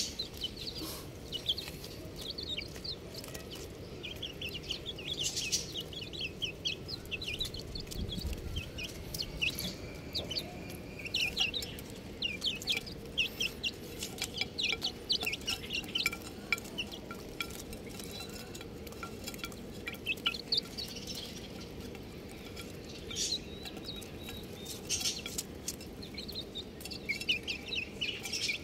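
Chicks peeping: many short, high-pitched chirps in quick runs, with a few louder calls, over a steady low background noise.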